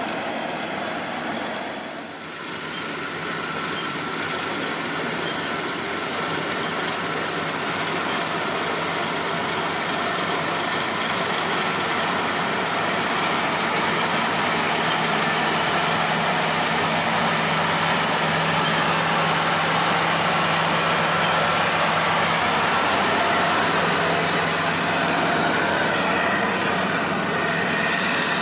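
Crown Sumo rice combine harvester running as it cuts and threshes standing rice: a dense, steady mechanical drone with a faint steady whine through the middle. It dips briefly about two seconds in, then grows louder and holds.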